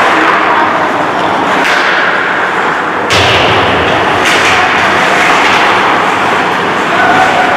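Ice hockey play: a steady din of rink noise broken by several sharp cracks and thuds of sticks and puck striking, the loudest about three seconds in.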